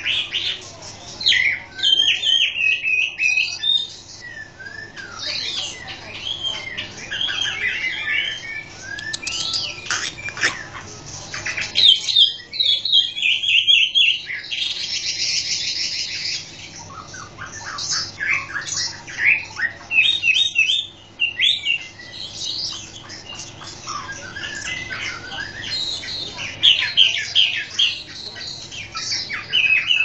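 Male Chinese hwamei (melodious laughingthrush) singing a long, varied song of rapid whistled and trilled phrases, with short pauses between bursts.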